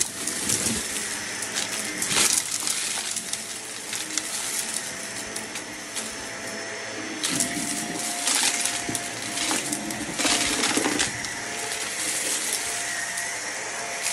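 Vacuum cleaner running while sucking up loose dirt. Grit crackles and rattles through the machine, heaviest about two seconds in and again from about seven to eleven seconds in.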